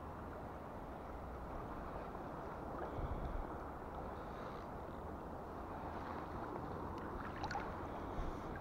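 Steady rush of flowing river water, with low wind rumble on the microphone; a few faint ticks about seven seconds in.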